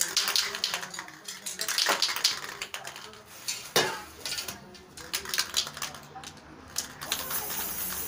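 Aerosol spray-paint can being handled and shaken, its mixing ball rattling in rapid clicks, with a couple of louder knocks. About seven seconds in, a steady hiss of paint spraying from the can begins.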